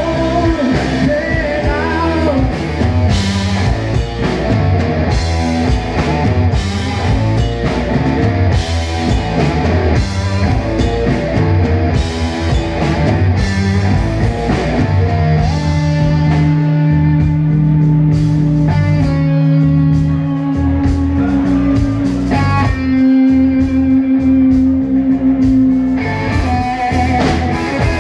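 Live rock band playing: overdriven electric guitar, bass, drum kit and a female singer. About halfway through, long held notes ring out over lighter drumming, and the full beat comes back near the end.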